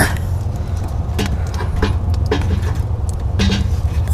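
Split firewood pieces knocking and clattering together as they are handled and fed into a small metal wood stove, with several sharp knocks a second or so apart. A steady low rumble runs under the knocks.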